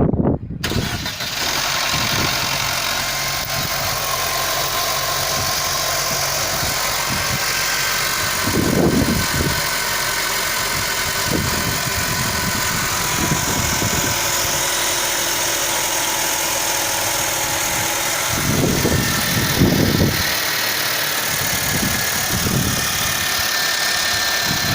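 Mercedes M271 four-cylinder petrol engine idling cold, with a steady knocking rattle from the timing chain, which the owner takes for a worn chain that will soon need repair.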